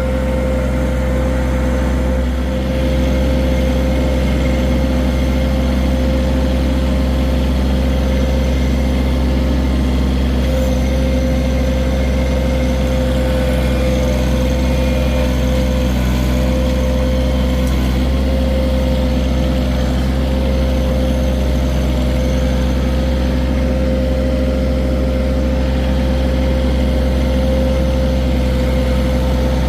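John Deere 1023E compact tractor's three-cylinder diesel engine running steadily, with a constant whine over the engine note.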